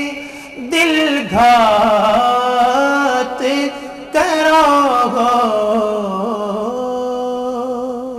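A solo voice singing a naat in long, ornamented melismatic phrases, sliding between held notes. There are two phrases, each after a short breath, and the last held note fades near the end.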